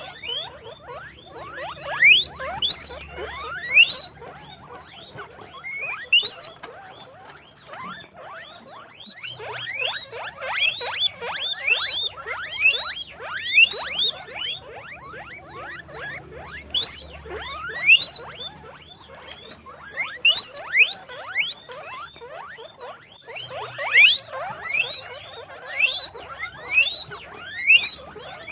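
A group of guinea pigs squeaking: many short, high squeaks that fall in pitch, overlapping in bursts every second or two.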